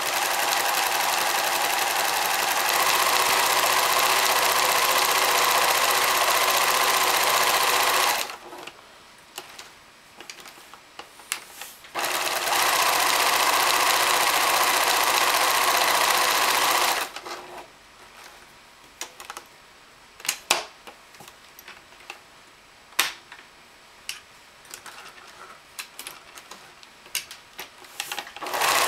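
Pfaff 1171 electric sewing machine stitching a zigzag seam through fabric, running in two bursts of several seconds each and starting again near the end. Between the bursts the machine stops, leaving scattered clicks and knocks.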